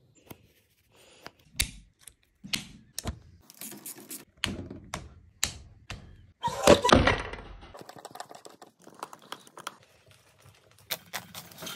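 Irregular clicks and knocks of an insulated screwdriver working the terminal screws and the plastic housing of a large industrial plug, with a louder, longer clatter about seven seconds in.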